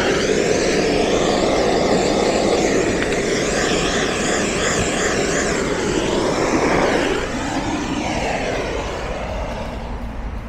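Handheld gas torch flame burning with a steady rushing hiss. It fades over the last few seconds.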